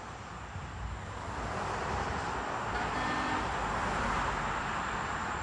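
Road vehicle noise, a steady rushing that grows louder over the first few seconds as a vehicle approaches, then holds.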